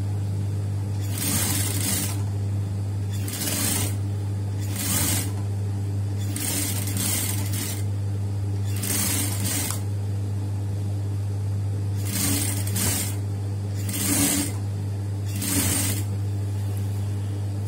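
Singer sewing machine stitching a folded hem in short bursts every second or two, its motor humming steadily between the runs.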